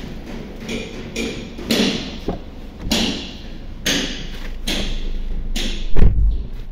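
Footsteps, then a heavy slam about six seconds in, the loudest sound. The car's engine idles underneath with the AC compressor running.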